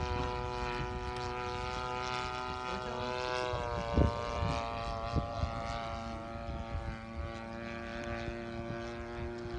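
Hangar 9 Corsair RC model plane in flight, its motor and propeller droning steadily. The pitch drops about three and a half seconds in as the throttle eases off. A couple of brief low thumps come shortly after.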